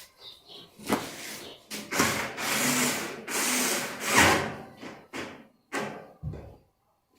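Hands working on the washing machine's parts: a few short knocks and two longer scraping, rubbing stretches, a little after two and three seconds in.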